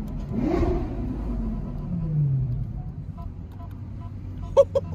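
Lamborghini engines slowing down. The revs fall, blip briefly about half a second in and drop again around two seconds, then several sharp exhaust pops crack out near the end as the cars come off the throttle.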